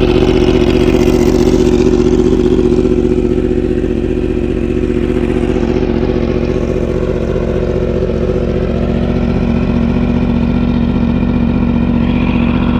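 Yamaha R1's inline-four engine idling steadily after a cold start, dipping slightly in level a few seconds in.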